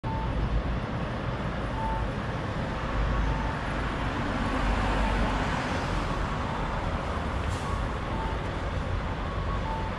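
Street ambience: a steady rumble of road traffic, with a faint short beep repeating about every second and a half.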